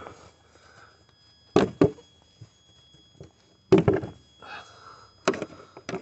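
Plastic engine cover of a Citroën 2.2 HDi being yanked off its push-fit mounts: a quick double clunk, then two more single clunks a couple of seconds apart as the corners pop free.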